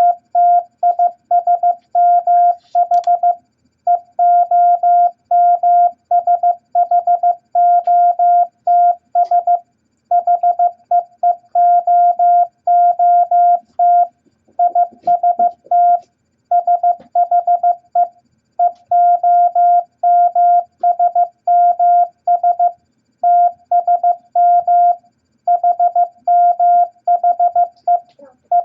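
Morse code practice tone: a single steady beep keyed on and off in short dots and longer dashes at 15 words per minute, spelling out the beginner letters E, I, S, H, T, M and O in groups separated by short pauses.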